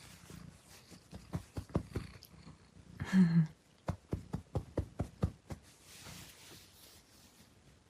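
A pet cat making one short, low call about three seconds in, among a run of soft, irregular clicks and taps.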